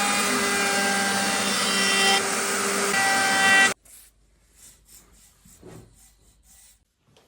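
A power woodworking tool running on wood, loud and steady with a few held tones, cutting off abruptly after about three and a half seconds. It is followed by faint rhythmic rubbing strokes, about three a second, for about three seconds.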